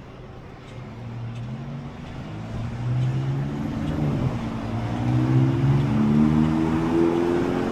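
A motor vehicle engine accelerating and getting louder. Its pitch climbs, drops about four seconds in as it changes gear, climbs again, and drops once more at the end.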